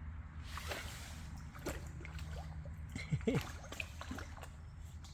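Faint light splashing and trickling of shallow rainwater, with scattered small splashes or taps over a low steady rumble.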